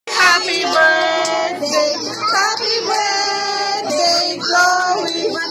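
Singing with music: high voices, a child's and a woman's, carrying a tune in held notes.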